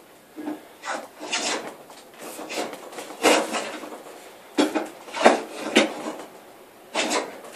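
Record 050 combination plane with a beading cutter taking a series of short, quick strokes along a wooden board, each a brief scraping swish of the iron shaving the wood. The bead is being cut down toward its final depth.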